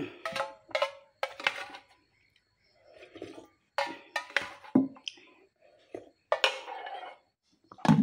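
Eating boiled noodles from an aluminium saucepan: a plastic spoon knocks and scrapes against the pot, a few knocks ringing briefly, between slurps of noodles. A louder knock near the end as the pot is set down.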